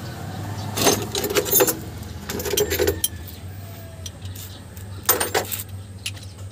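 Metal tools and parts clinking and rattling in three short bursts, about a second in, midway and near the end, over a steady low hum.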